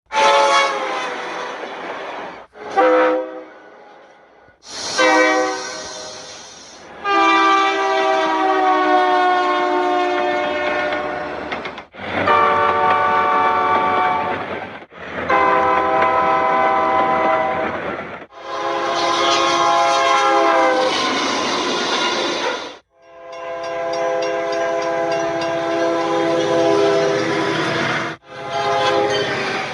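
Locomotive air horns: about nine separate train horn recordings cut one after another, each blast lasting from under a second to about five seconds, with abrupt cuts between them.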